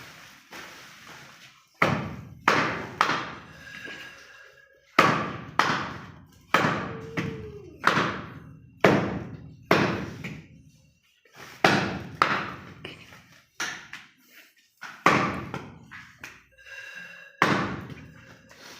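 Butcher's cleaver chopping through goat leg on a chopping block: a run of heavy chops, each with a short ringing tail, in irregular groups with brief pauses.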